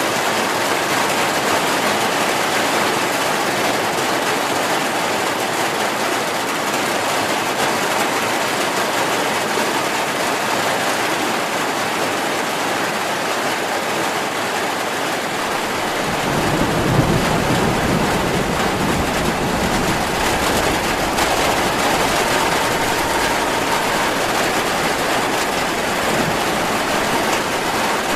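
Heavy rain falling steadily as an even, dense hiss. A little past halfway a low rumble of thunder comes in, loudest soon after it starts, and lingers under the rain.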